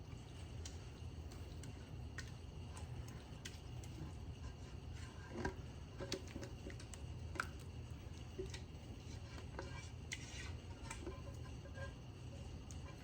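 Scattered light clicks and taps of kitchen utensils against dishes over a steady low hum, the sharpest taps about five and seven seconds in.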